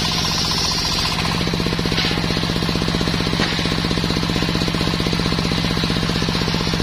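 Belt-driven table circular saw ripping a sengon log lengthwise, over the steady, rapid pulsing of the engine that drives it.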